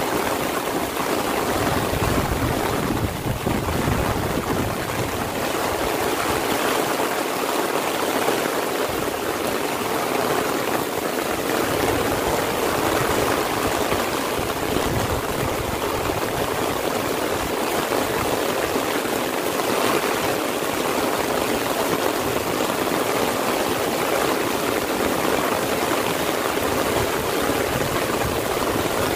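Heavy rain falling steadily on an umbrella held overhead and on the surrounding fields and trees.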